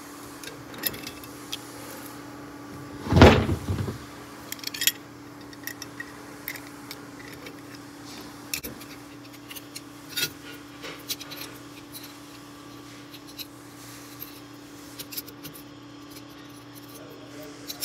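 Small metallic clicks and scrapes of an Allen key turning bolts and tapping against a steel torque-arm bracket on a Varvel gearbox, with handling knocks. The loudest, about three seconds in, is a short knock-and-rustle lasting under a second as the gearbox is shifted in the hands. A faint steady hum sits underneath.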